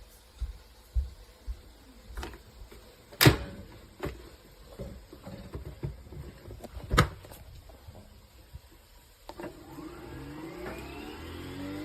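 Scattered clicks and knocks, the loudest about three and seven seconds in. About nine seconds in, a Nespresso Vertuo Pop+ capsule machine's motor starts and its whine rises in pitch as it spins the capsule up to brew.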